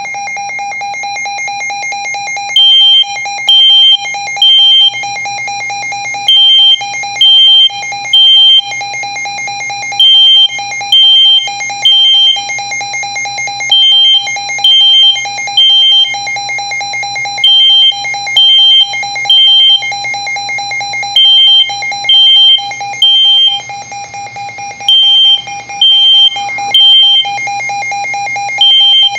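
A Midland WR120 weather alert radio sounding its alarm as a steady, rapidly pulsing tone. Over it a smoke detector beeps in repeated groups of three, louder than the radio. The detector's beeps start about three seconds in.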